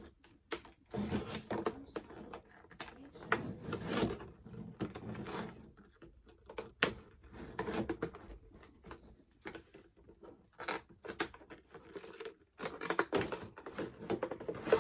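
Plastic and cardboard doll packaging being handled and pulled apart: irregular bursts of crinkling and rustling with many sharp clicks.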